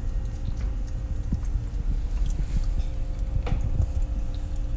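Handling noise from a handheld phone being moved around a glass jar: a low rumble with scattered light knocks and taps, over a steady faint low hum.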